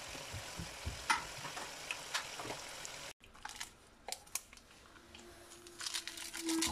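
Chicken masala for biryani sizzling in a karahi as chopped green herbs are tipped in, with a few light knocks. After a sudden cut about three seconds in, quieter crinkling and small clicks as something is crumbled by hand into a glass bowl.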